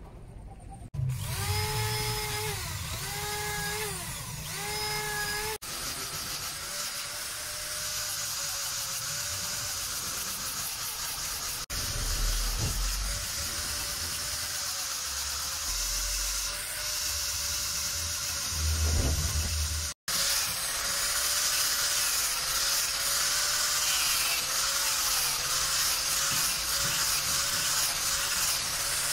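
Electric angle grinder with a sanding disc running and sanding a knife's wooden handle, its whine dipping slightly as it is pressed on. The first few seconds hold another power tool's whine that dips three times under load.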